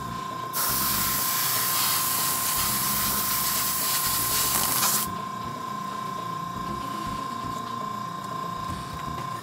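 Gravity-feed airbrush spraying paint in a steady hiss, starting about half a second in and stopping about halfway through. A steady high whine runs underneath throughout.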